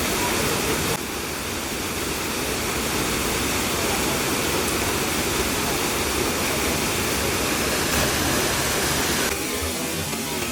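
Waterfall rushing as a steady wash of water noise. The sound shifts abruptly about a second in and drops to a softer, thinner rush near the end.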